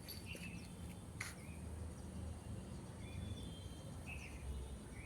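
Faint outdoor background with a low steady rumble and a few short, distant bird chirps scattered through it, plus a single soft click about a second in.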